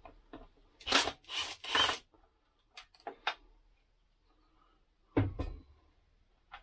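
Hands handling air-conditioner parts and tools: three scraping, rustling strokes about a second in, then a few sharp clicks, and a dull thump of something knocked or set down about five seconds in.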